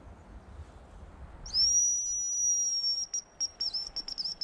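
Hazel grouse decoy whistle blown to imitate a male hazel grouse's song: a loud, high whistle held steady for about a second and a half, then breaking into a quick string of short, dipping notes.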